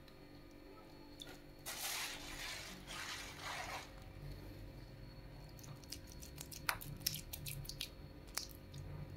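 Beef meatball dough being squeezed and scooped by hand: about two seconds of wet squelching, then a run of light clicks and taps of a metal spoon against the pan of water.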